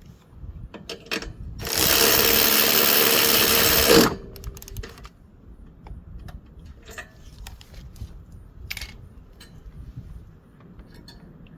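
A small power tool's motor runs steadily for about two and a half seconds, starting about two seconds in and cutting off abruptly. Light clicks and knocks of tools being handled come before and after it.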